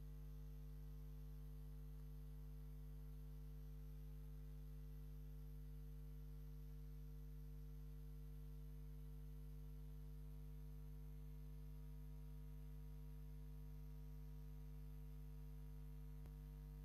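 Near silence with a steady low electrical mains hum.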